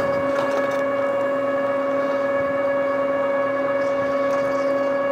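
A steady machine hum holding one constant pitch with several overtones above it, over a faint rushing noise.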